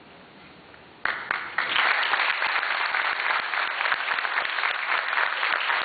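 Audience applauding. It starts suddenly about a second in and keeps up steadily.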